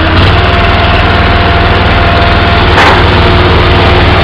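Pickup truck engine running loudly and steadily, a low throb with an even fast pulse.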